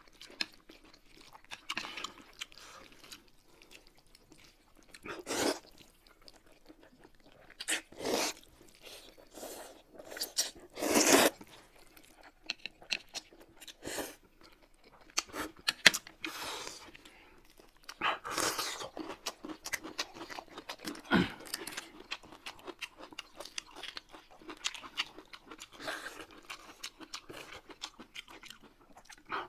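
Close-up mouth sounds of people eating: chewing, crunching and biting food in irregular bursts. Occasional sharp clicks are heard among them.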